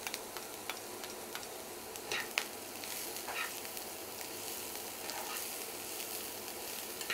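Shredded cabbage and chopped vegetables sizzling in oil in a frying pan while a spatula stirs and scrapes them, with scattered light clicks of the spatula against the pan.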